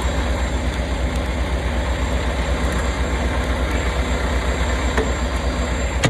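Semi-truck's diesel engine idling, a steady low throb.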